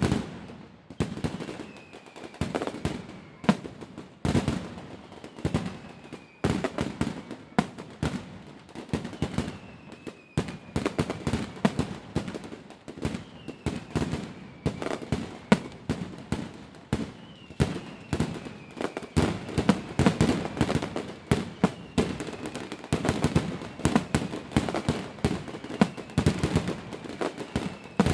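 Fireworks bursting in rapid, dense succession, a constant barrage of bangs and crackles, with faint falling whistles every couple of seconds.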